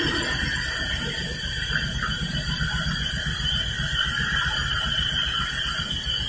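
Sawmill band saw machinery running: a steady high whine over a low rumble.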